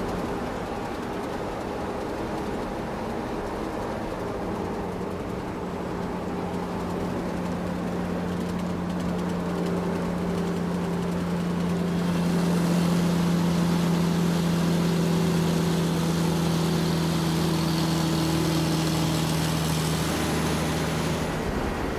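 Excavator's diesel engine running steadily under load, a constant hum. About halfway through it grows a little louder with an added hiss, then settles slightly lower near the end.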